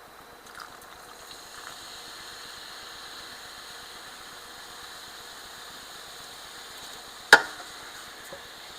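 Carbonated Sprite fizzing steadily over ice in a cup, with one sharp knock a little over seven seconds in.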